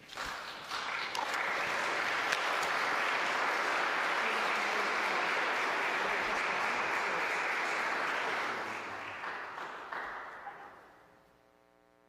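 Congregation applauding. The applause swells over the first second or two, holds steady, then fades out over the last few seconds.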